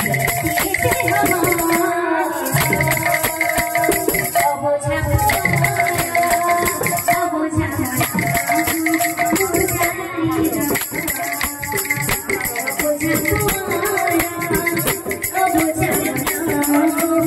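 Live folk music: a fast, steady rattling from shaken rattles or jingles under a held, wavering melody line.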